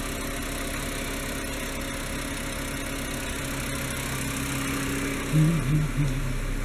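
Volkswagen Jetta wagon's engine idling steadily.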